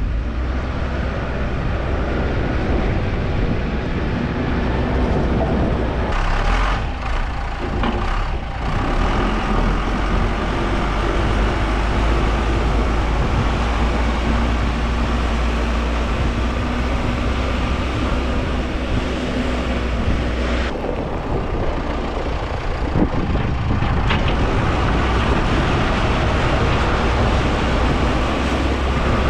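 A truck's engine running steadily with a low drone, mixed with road and wind noise.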